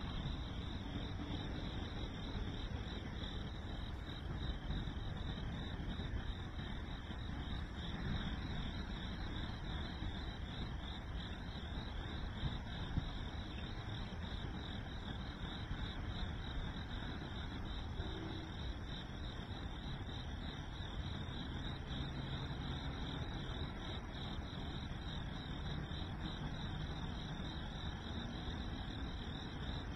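Chorus of crickets chirping steadily in fast, even pulses, over a low steady rumble.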